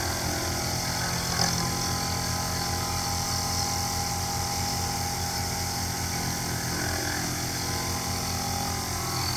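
Sherline benchtop milling machine running steadily, its end mill cutting a keyway slot in metal.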